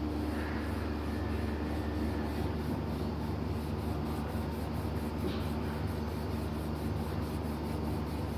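Steady low background hum with faint room noise, with a faint light handling sound about five seconds in.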